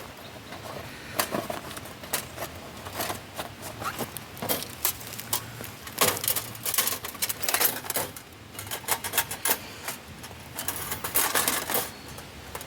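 Irregular clicking, clinking and rattling of metal camp gear being handled and rummaged through, with clusters of quick clatters.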